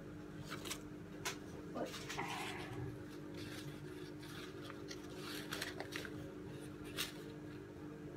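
Crumpled paper crinkling and rustling as it is handled, in scattered short crackles, over a steady low hum.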